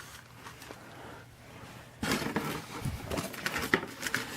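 Handling noise: after a quiet start, rustling with irregular small knocks and clicks begins about halfway through, as things are moved about on the work surface.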